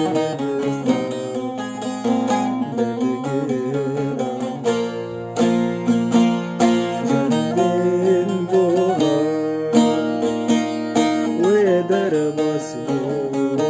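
Music from a Kurdish song: a plucked string instrument carries the melody in quick, sharply struck notes, with some held notes wavering in pitch.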